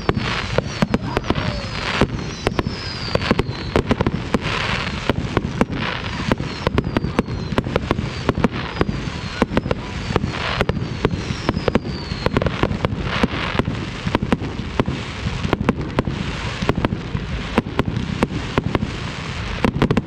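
Fireworks display: a steady run of bangs and crackles throughout, with high whistles falling in pitch several times in the first few seconds and again about halfway through.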